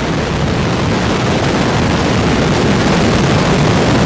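Terran 1 rocket's first-stage engines, nine methane-oxygen Aeon 1 engines, running at full thrust just after liftoff. A loud, steady rushing rumble, heaviest in the low end.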